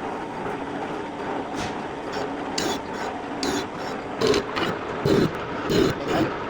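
Steady mechanical scraping noise. From about halfway in it turns into rhythmic rasping strokes, roughly one every 0.8 seconds.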